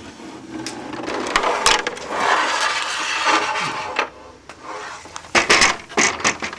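Plastic casing of a window air conditioner scraping and clicking as it is taken apart, a long dragging scrape in the first few seconds, then several sharp knocks near the end.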